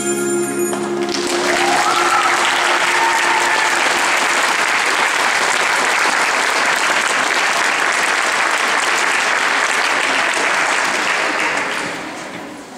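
A song's held final chord cuts off about a second in, and an audience breaks into steady applause, which dies away near the end.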